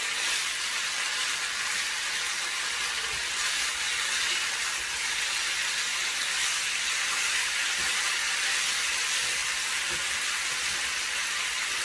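Chicken strips sizzling steadily in a hot frying pan, stirred now and then with a wooden spatula.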